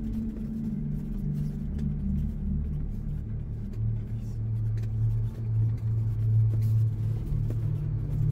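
Low, steady drone of the Ford Bronco driving on a gravel trail, with background music over it.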